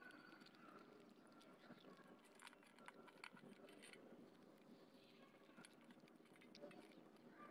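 Faint, scattered crunches and clicks of cats chewing dry kibble from a stainless steel bowl.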